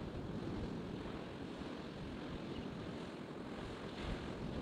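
Surf washing on the beach with wind buffeting the microphone: a steady wash of noise with an unsteady low rumble.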